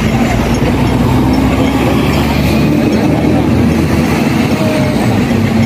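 Steady city street traffic noise: a continuous rumble of passing vehicles.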